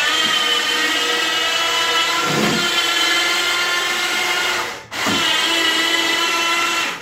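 Electric motor of a go-kart lift whining steadily as it raises and tilts a kart up on end, stopping for a moment about five seconds in and then starting again.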